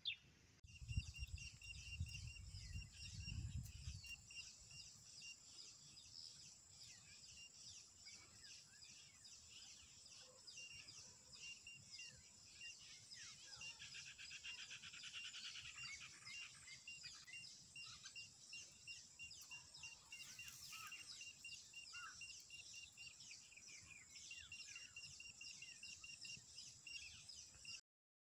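Faint outdoor ambience of insects and birds: a steady high insect drone with a regular chirping rhythm and scattered bird chirps. A low rumble in the first few seconds, and the sound drops out just before the end.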